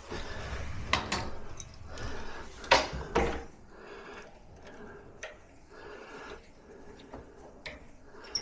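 Sharp metallic clicks and clunks from a door latch and handle being worked during fitting, the loudest just under three seconds in, with a few quieter clicks later.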